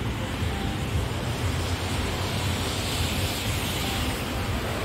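Wind buffeting a phone microphone, a steady rumble, over an even hiss of street traffic on wet road that swells a little about three seconds in.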